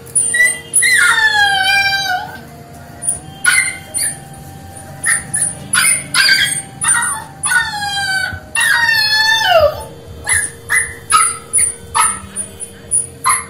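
Puppies whining and yelping: two long high whines that fall in pitch, about a second in and again around eight seconds in, among many short sharp yelps.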